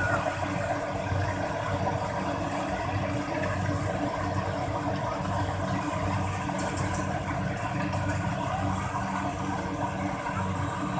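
Mechanical rice harvester's engine running steadily at an even speed.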